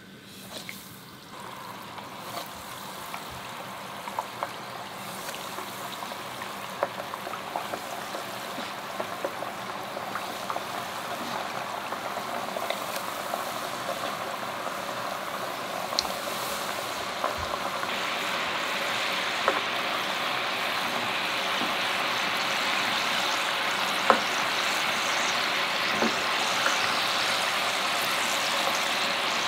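Pierogi deep-frying in hot oil: a crackling sizzle that starts as they go into the pot and grows steadily louder as the oil bubbles up around them, with a few sharper pops.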